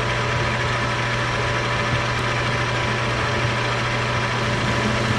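Metal lathe running at steady speed with its chuck spinning, while a bolt is turned down: a steady motor hum with a thin, even whine above it.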